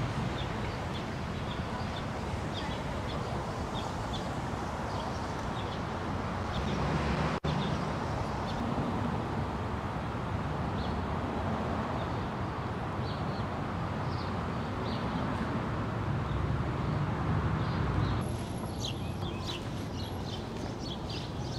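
Outdoor ambience: a steady background rush of distant traffic or wind, with small birds chirping now and then throughout.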